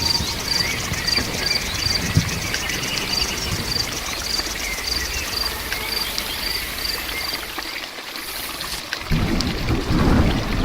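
Heavy rain falling steadily, with a high chirp repeating about twice a second over it. About nine seconds in, the sound shifts to heavier, deeper splashing and pouring water.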